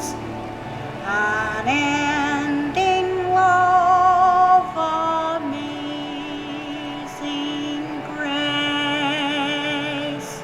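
A woman singing long held notes with vibrato over soft musical accompaniment; the phrase fades out near the end.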